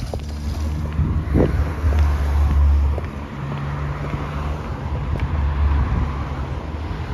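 Road traffic passing close by: car engines humming with tyre noise, swelling and fading twice as cars go past.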